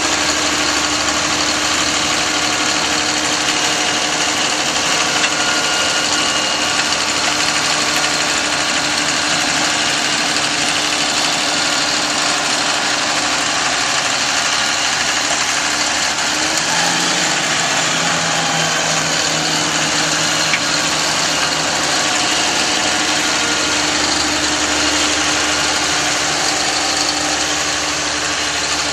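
Trail-groomer tractor's engine running steadily while it works sand on the trail, its pitch shifting briefly a little past halfway through.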